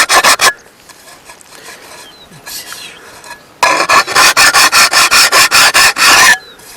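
Fast rhythmic rasping strokes, about four or five a second, in two spells with a pause of about three seconds between them.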